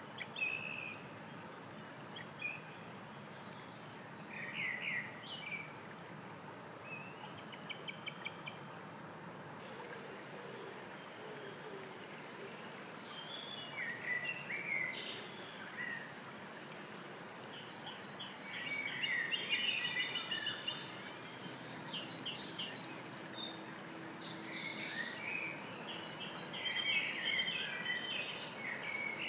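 Songbirds singing over the steady babble of a shallow stream running over stones. The short, high phrases come now and then at first and grow busier and overlap in the second half.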